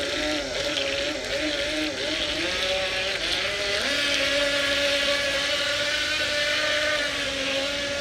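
Remote-control model speedboat's motor whining as it runs across a pool, its pitch wavering with the throttle for the first few seconds, then rising sharply about four seconds in and holding steady at the higher speed.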